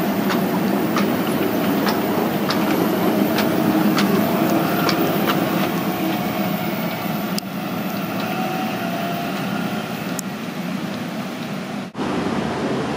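Translohr rubber-tyred tram passing close by: a steady rumble of its running gear with a faint whine, and a run of sharp regular clicks, about two a second, through the first few seconds. The sound drops out briefly near the end.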